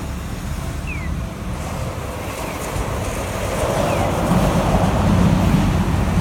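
Low rumble of an approaching train, growing louder from about halfway through, with a short falling chirp repeating about every second and a half.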